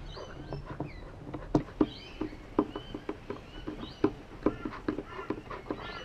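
Irregular light taps and knocks on a wooden tabletop, a few sharper ones near the start. Faint high bird chirps run underneath.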